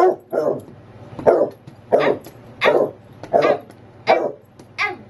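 Basset hound barking, about eight loud barks at a steady pace of roughly one every two-thirds of a second: excited demand barking to be taken for a walk.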